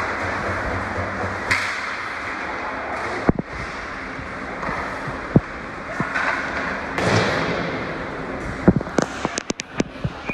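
Steady noise of a game in a large hall, with scattered thuds and a quick run of sharp knocks and taps near the end.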